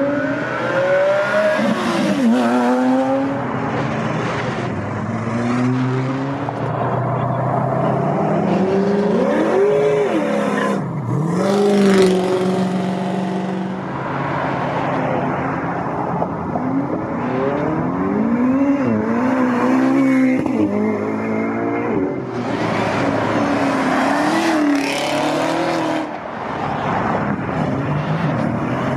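Several performance cars revving and accelerating away one after another, their engine notes climbing and dropping in pitch again and again, often overlapping.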